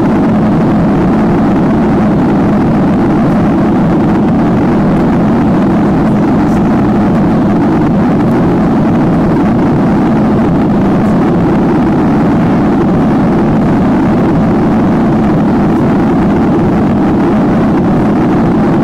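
Steady, deep cabin noise of a Boeing 737-800 in its climb after takeoff: its CFM56 jet engines and the airflow over the fuselage, heard from a window seat inside the cabin.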